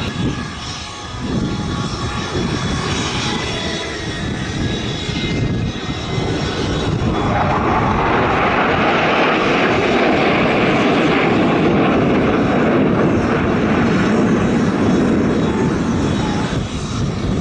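Jet engine noise from a six-ship formation of F-16 fighter jets flying past. It grows much louder about seven seconds in and stays loud as they go by.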